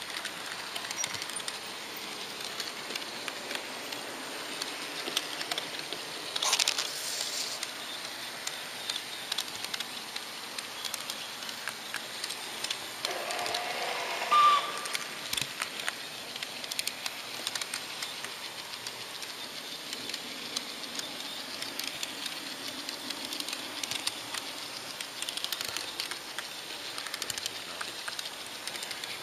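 H0-gauge model train running along its track: a steady hiss with frequent small clicks from the wheels over the rails. There is a brief louder rush of noise about six seconds in, and a short high tone about fourteen seconds in.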